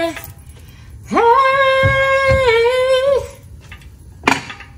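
A woman's voice holds one long, high sung note that wavers in pitch near its end. A single sharp knock follows near the end.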